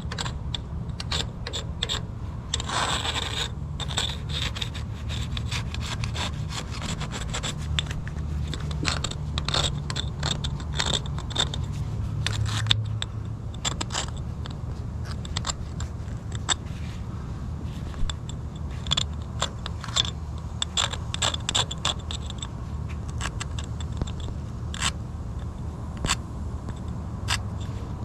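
Irregular scraping and rubbing on a hard surface, with many sharp clicks and scratches, over a steady low hum.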